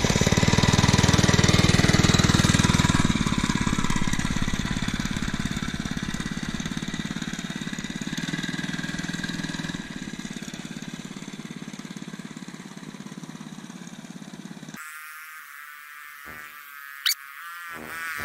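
Small 2.5-horsepower minibike engine running and moving away, fading steadily over about fifteen seconds. Then there is an abrupt cut to much quieter sound, with a couple of short high squeaks near the end.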